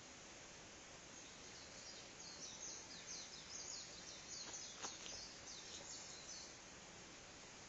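A small songbird singing a fast run of short, high, downward-slurred notes for about five seconds over a faint outdoor hiss, with a single soft knock near the middle.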